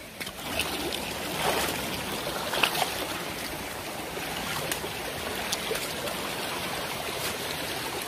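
Shallow stream running over river rocks: a steady rush and trickle of water, with a few faint knocks.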